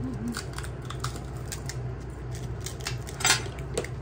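Scattered crisp cracks and clinks as hollow pani puri shells are broken open with the thumbs and a spoon taps against the bowls, one louder crack about three seconds in, over a steady low hum.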